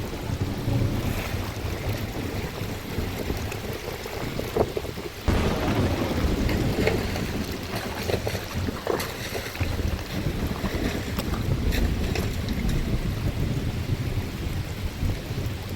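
Storm wind buffeting the microphone over a steady wash of heavy rain and rushing floodwater.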